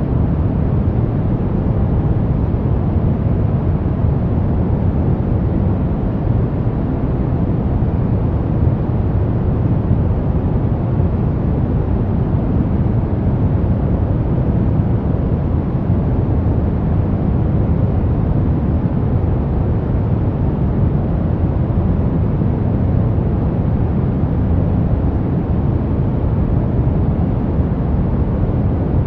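Steady brown noise: a deep, even rumbling hiss with most of its energy in the low bass, unchanging throughout.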